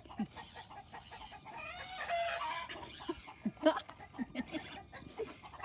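Chickens clucking: a run of short calls with a longer drawn-out call about two seconds in.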